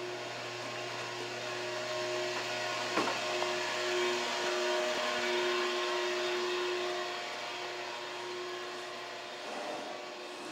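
Steady mechanical drone of machinery: a hum with a few held tones under a hiss that swells through the middle and eases off near the end, with a single sharp click about three seconds in.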